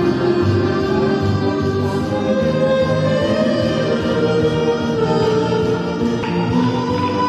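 Street accordion playing a melody over held chords, each note sustained for about a second before the next.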